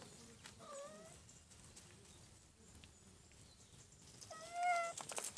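A kitten meowing twice: a faint short meow about half a second in and a louder one near the end, followed by a few light clicks.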